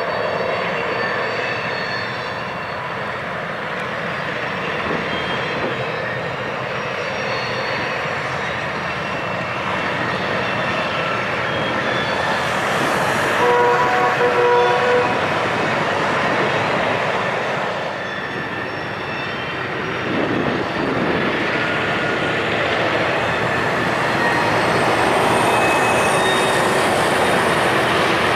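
Two EMD GP15-1 diesel locomotives, each with a 12-cylinder EMD 645 engine, working hard under load with a steady engine drone and rail noise. A short horn blast sounds about halfway through.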